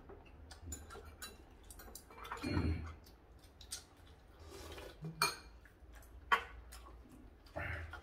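Metal chopsticks and spoons clicking and clinking against ceramic bowls and plates while people eat, in many scattered small taps. A short low murmur comes about two and a half seconds in.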